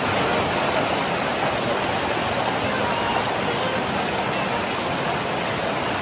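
Waterfall pouring into a rocky river pool: a steady, even rush of falling and flowing water.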